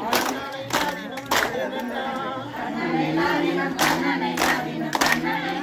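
A group singing a kummi folk song in chorus, with sharp hand claps keeping the dance's beat: two sets of three claps about two-thirds of a second apart, one near the start and one past the middle.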